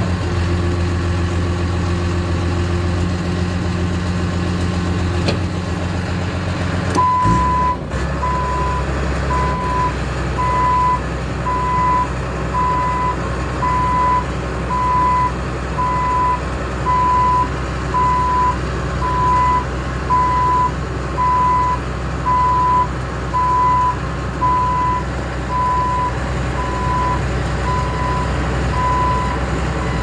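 Crawler bulldozer's diesel engine running steadily. About seven seconds in the engine note changes and the reverse alarm starts beeping about once a second, the sign that the dozer is backing up.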